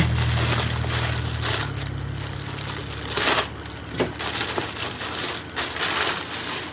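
Clear plastic packaging bag crinkling and rustling as it is handled and opened, with a few sharp crackles.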